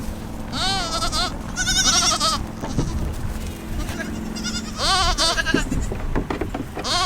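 Goat kids bleating: three quavering cries, about half a second to a second long, near the start, about two seconds in and about five seconds in.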